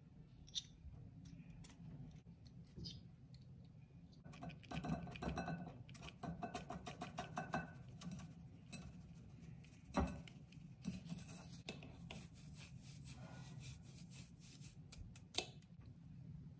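A whisk scraping and rubbing flour and cocoa powder through a stainless steel mesh sieve into a glass bowl, with many small clicks. There is one louder knock about ten seconds in.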